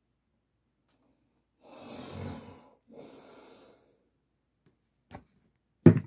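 Two puffs of breath, a longer one and then a shorter one, followed by a faint click and a sharp knock near the end as the phone is handled.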